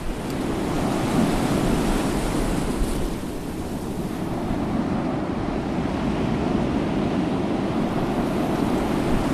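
Steady rush of waves breaking and water streaming past the hull of a small sailboat under sail in rough seas, with wind buffeting the microphone.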